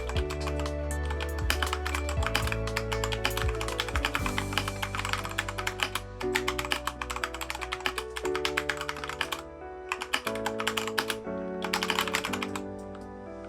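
Fast typing on a Keychron K2 mechanical keyboard with unlubed Gateron switches: a dense run of key clicks that breaks up into short bursts after about nine seconds and stops near the end.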